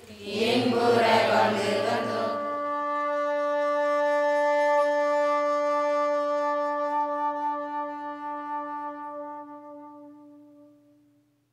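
A group of women chanting a prayer in unison, then a single long held tone that slowly fades out.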